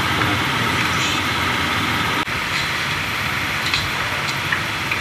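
Steady road-traffic noise from the street, with a few faint light clicks in the second half.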